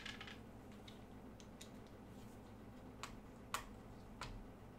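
A few faint, small clicks as a screwdriver tip seats in and turns a laptop heatsink screw: three clicks in the second half, the middle one the sharpest.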